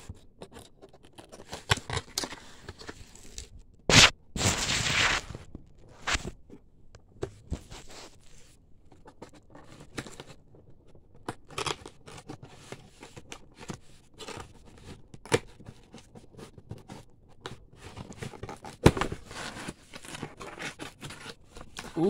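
Cardboard box being handled and opened by hand: scattered clicks, scrapes and rustling of the cardboard flaps. A sharp snap about four seconds in is followed by about a second of scraping, and another loud click comes near the end.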